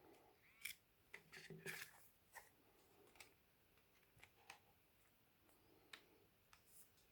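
Faint, irregular taps and clicks of a smartphone being handled and its screen tapped while it is tested, with near silence between them.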